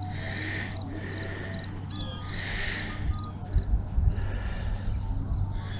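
Crickets chirping in an even rhythm, about three high chirps a second, with a few low thumps on the microphone about halfway through.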